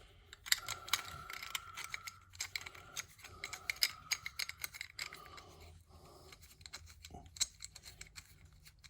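Faint, irregular metallic clicks and taps of small screws, bracket parts and hand tools being handled during hand assembly work.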